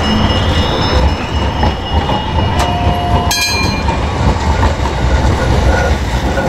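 Articulated city tram rolling slowly past at close range on street track, a steady low rumble from its wheels and running gear on the rails. Faint thin wheel squeal runs under it, and a short metallic clang comes about three seconds in.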